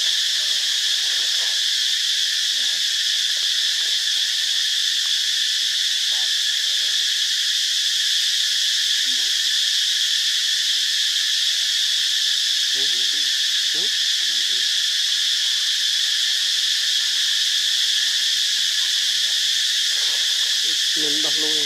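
A steady, high-pitched insect chorus drones without a break, with a few faint short calls briefly rising above the background about two-thirds of the way in and again near the end.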